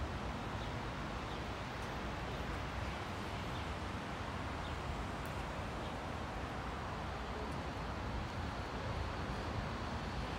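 Steady railway-platform background noise: an even low rumble and hiss, with a few faint, short high chirps now and then.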